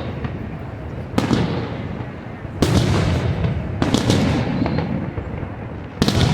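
Aerial fireworks shells bursting, four sudden booms a little over a second apart, each trailing off in a low rolling rumble.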